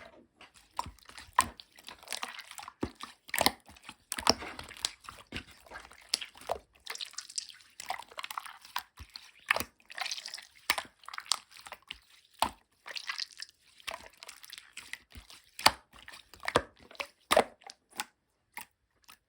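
Clear blue slime being squished and worked by hand, making irregular sticky pops and clicks, some in quick crackling runs, as trapped air bursts.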